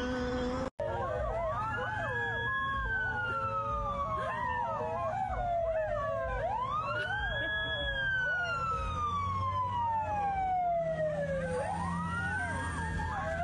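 Emergency vehicle siren wailing in long sweeps, each rising quickly and then falling slowly, three times over, with dogs howling along in shorter wavering calls.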